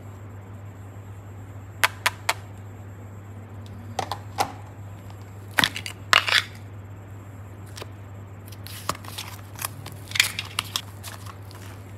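Hands handling small plastic containers and a clear plastic mould, giving a few sharp plastic clicks and taps, with the loudest cluster of snaps around the middle. Near the end come quicker scattered clicks and crackles as soft play clay is squeezed. A steady low hum runs underneath.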